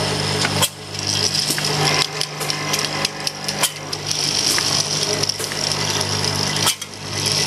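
Automatic bottle filling and capping machine running: a steady motor hum under rapid, irregular clicking and clattering of its moving parts. The sound dips briefly about a second in and again near the end.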